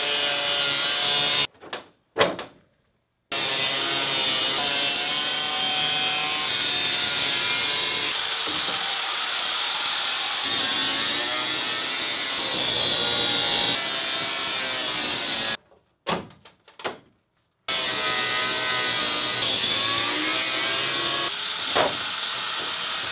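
Handheld power cutting tool cutting through the fiberglass inner panel of a car hood: a high whine whose pitch dips and recovers as the tool bites into the fiberglass. It stops abruptly twice and starts up again.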